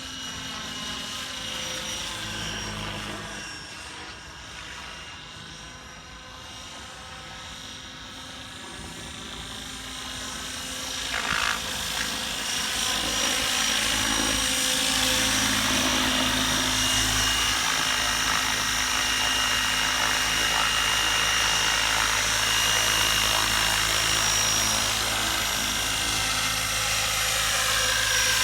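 12-cell electric RC helicopter flying: a steady motor whine with rotor noise that grows louder about ten seconds in and stays loud.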